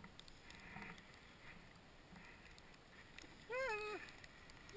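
Faint hiss of a snowboard riding through powder snow, then a short, high whoop from a rider about three and a half seconds in.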